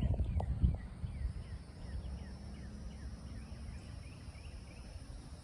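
Outdoor marsh ambience: a low rumble with a few thumps in the first second, and a run of short, falling high chirps, about two or three a second.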